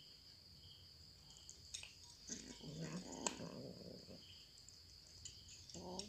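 Two cats eating dry kibble from a glass bowl, with faint sharp clicks of crunching and bowl contact. A low, rough cat sound lasts about two seconds in the middle, and another starts near the end.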